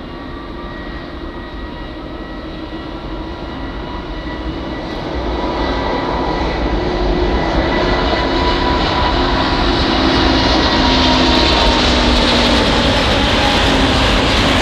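Airbus A350-1000's twin Rolls-Royce Trent XWB turbofans at takeoff power: a deep roar with a steady whine on top, growing louder over the first ten seconds as the jet comes closer, then holding loud.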